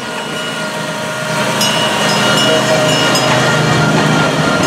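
Kiddie barrel train passing, its motor running steadily with the barrel cars rolling along; it gets louder about a second and a half in as it comes closest.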